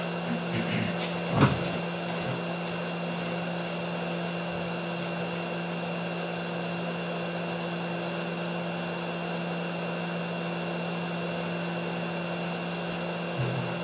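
Steady whir of a small fan motor with a low hum and a faint high whine, broken by a single knock about a second and a half in and a couple of light knocks near the end.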